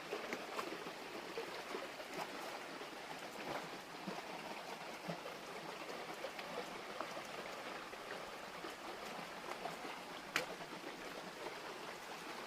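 A stream running steadily over rocks, with scattered small ticks and one sharp click about ten seconds in.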